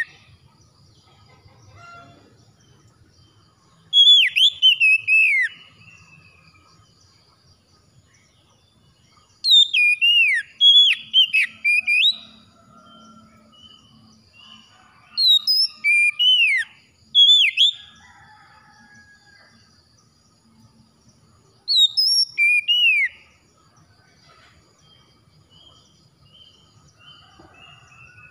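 Oriental magpie-robin singing: four loud bursts of sweet whistled phrases a few seconds apart, each a quick run of sliding notes that rise and fall.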